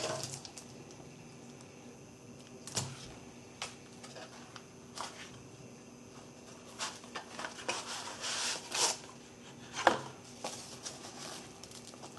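Light, scattered clicks and taps of small objects being handled on a work surface, a few seconds apart, with a short busier run of rustling clicks about three quarters of the way through, over a faint steady hum.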